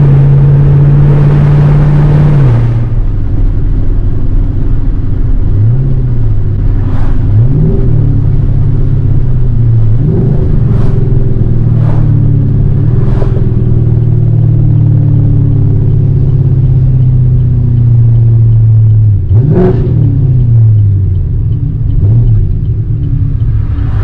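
Fifth-generation Camaro V8 with long-tube headers running at full operating temperature, heard from inside the cabin while driving: a steady deep exhaust note at low engine speed that rises briefly in pitch several times. A few short knocks come through as well.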